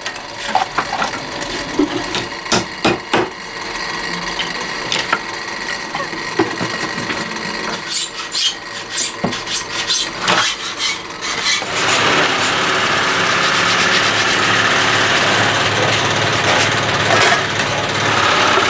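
Hand tools working wood: irregular knocks and taps mixed with rasping and scraping strokes. About twelve seconds in, a steady, louder noise takes over.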